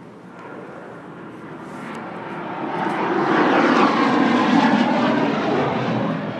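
Engine noise of something passing by, swelling steadily to a loud peak about three to five seconds in, then fading near the end.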